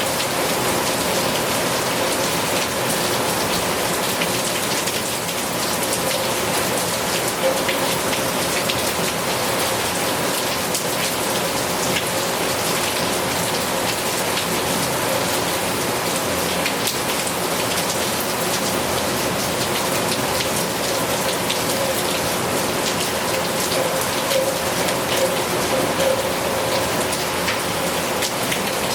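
Heavy rain falling steadily, with many individual drops ticking sharply on a hard surface close by.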